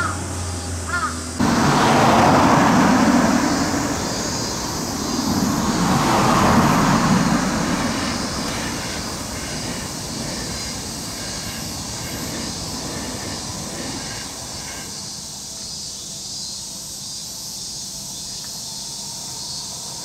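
Electric commuter train on the Seibu Ikebukuro Line running over a level crossing. The running noise comes in suddenly about a second in and is loudest over the next several seconds, then settles to a steadier, quieter sound, while the crossing's warning bell rings.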